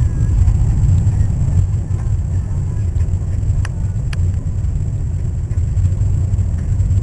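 Steady low rumble of a car driving, heard from inside the cabin, with two sharp clicks about halfway through.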